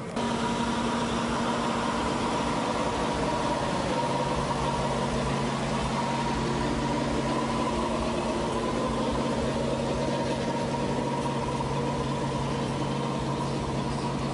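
An engine running steadily with a constant hum; it starts suddenly just after the opening.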